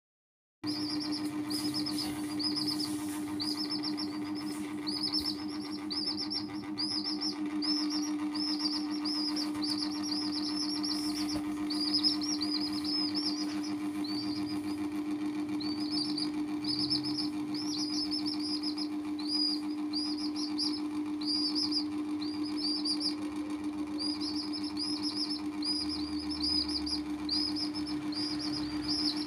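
Baby chickens peeping: runs of short, high chirps, several a second, with a brief lull about halfway, over a steady low hum.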